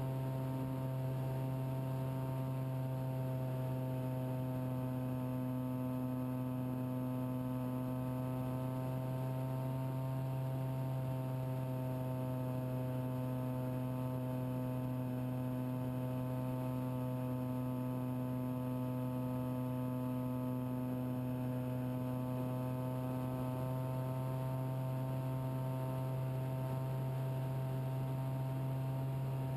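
Steady electrical hum with a stack of overtones, drifting only slightly in pitch.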